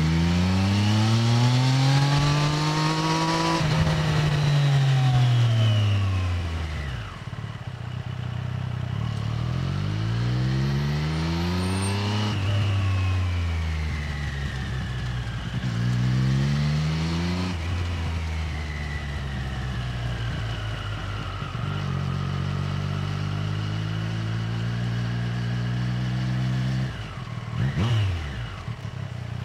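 Stock Triumph Street Triple 765R inline-three engine and exhaust at low speed, the revs rising and falling several times as it pulls away and rolls off, then holding steady for a few seconds before a quick dip and rise near the end. Wind noise rushes over the tail-mounted microphone.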